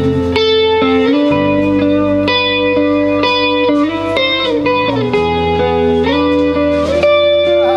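Live band playing an instrumental passage: electric guitar lines over sustained chords and a steady bass, the chords changing about every second.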